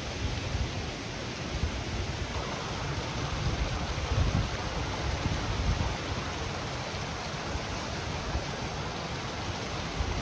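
Steady rush of a rocky mountain stream flowing, with irregular low rumbles of wind buffeting the microphone, strongest about four seconds in.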